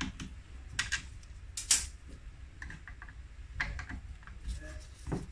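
Scattered light clicks and knocks of a T27 Torx T-bar turning screws out of the plastic housing of a Stihl MS 181 chainsaw. The loudest click comes a little under two seconds in.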